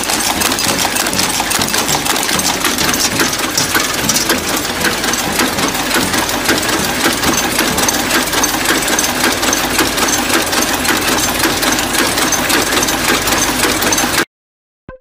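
A machine running with a fast, steady mechanical clatter of rapid ticks that cuts off abruptly about fourteen seconds in.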